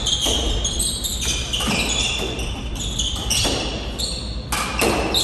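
Squash rally: the ball struck by rackets and smacking the court walls and floor about every half second to a second, ringing in the enclosed court, with rubber-soled court shoes squeaking sharply on the hardwood floor between shots.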